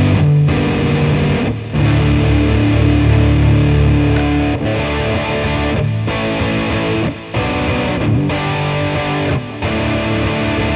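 Electric guitar playing overdriven chords and riffs through a germanium OCD-style overdrive pedal set to full distortion on its low-pass setting, with the tone opened to about 3 o'clock. The chords ring out with a few short breaks between phrases.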